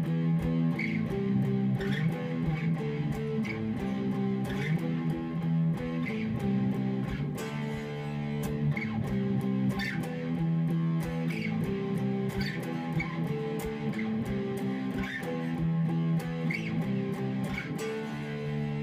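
Electric guitar played through an amplifier: a repeating riff of picked two-note chords on the A and D strings, moving between fret positions, with the notes ringing between regular pick attacks.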